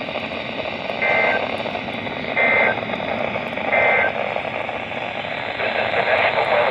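NOAA Weather Radio SAME end-of-message code: three short warbling data bursts, each about a third of a second long and roughly 1.3 s apart, over steady radio static hiss. The bursts mark the end of the broadcast test message.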